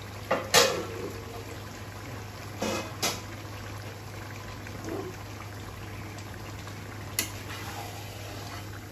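Beef cooking in spiced mustard-oil masala in a karahi over a gas flame, sizzling and bubbling steadily. Sharp metal clinks of utensils against the pan come about half a second in, around three seconds in and about seven seconds in, as a spatula begins stirring near the end.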